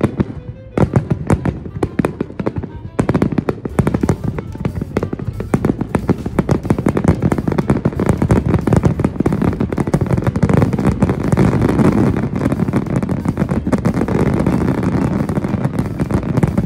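Fireworks barrage: shell bursts in rapid succession with crackling, many bangs a second, thickening into a dense continuous crackle from about ten seconds in.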